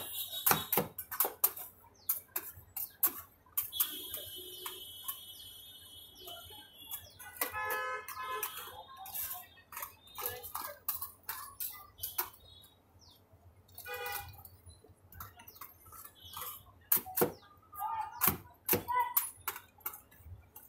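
Metal spatula chopping and scraping on the steel freezing pan of a rolled-ice-cream machine: an irregular run of sharp metallic taps and clicks, thinning out for a few seconds past the middle.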